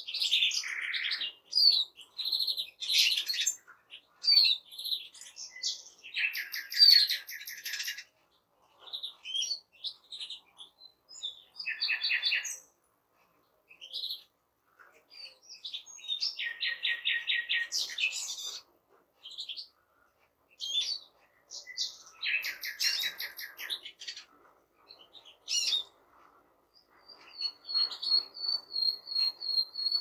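Chorus of small finches (European goldfinch, European greenfinch and Eurasian siskin) singing in bursts of fast twittering and rapid buzzy trills, with short pauses between phrases. Near the end one bird holds a long, high, steady whistled note for about three seconds.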